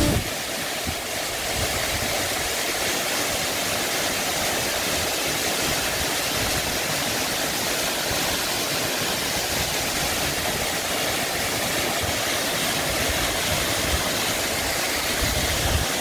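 Steady rushing of a waterfall cascading down a rock face into a pool.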